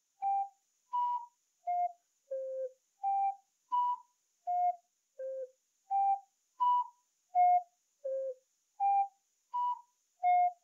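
Ocarina playing slow, separate notes with short gaps between them: a four-note figure (middle, high, lower, lowest) repeated about four times at an even pace.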